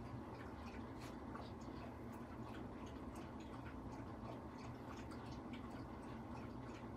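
Quiet room tone: a steady low hum with scattered faint, irregular small clicks.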